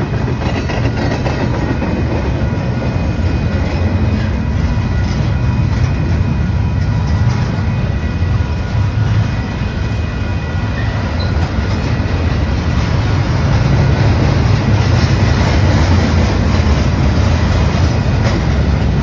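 Double-stack intermodal freight train's well cars rolling past: a steady rumble of steel wheels on rail, with a few faint high tones over it, growing a little louder in the second half.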